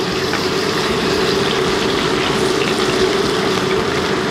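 Cubes of raw lamb sizzling steadily in a generous amount of hot oil in a wok, frying almost as if deep-fried, with a steady low hum underneath.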